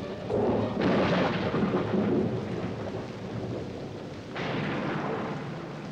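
Thunder rolling over rain, with two peals: one about a second in and another just past four seconds.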